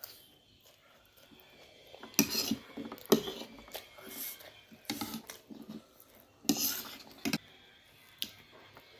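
Fork and spoon clinking and scraping against a plate of noodles, in short irregular bursts that start about two seconds in.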